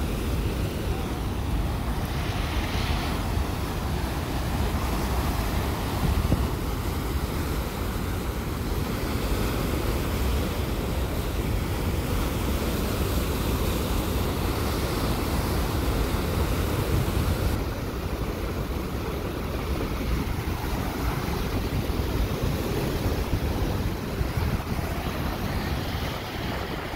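Niagara River rapids rushing over the brink of Horseshoe Falls: a loud, steady rush of water, heaviest in the low end.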